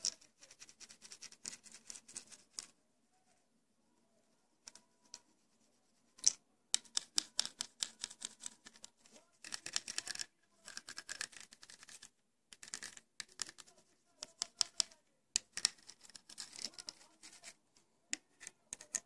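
Aluminium foil tape on a hard plastic fishing lure being rubbed and smoothed down with a marker pen: bursts of quick, dry scratching strokes. There is a pause of a few seconds after the first couple of seconds.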